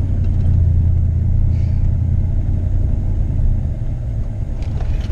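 Pickup truck driving slowly over a bumpy off-road trail: a steady low engine and road rumble that eases a little past halfway, with a few light knocks near the end.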